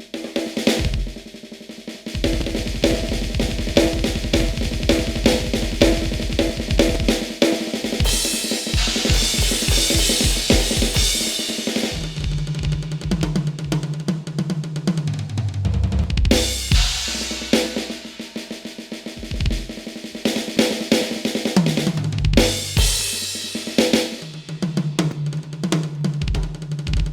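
Roland TD-15KV electronic drum kit being played. It opens with rapid kick-drum strokes and snare rolls, has a stretch of cymbal crashes in the middle, and has tom fills later on.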